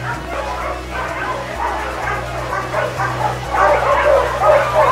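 A chorus of many dogs barking and yipping over one another, growing denser and louder about three and a half seconds in.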